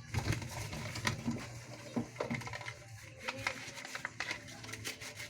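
Irregular clicks, knocks and scraping of small hard objects being handled close by, over a steady low hum.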